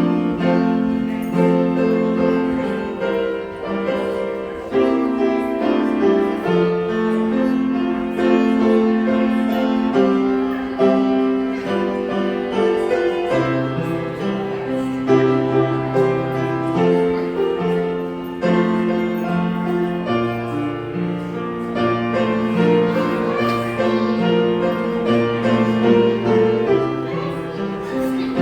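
Piano or keyboard music, a steady flowing instrumental with a moving bass line.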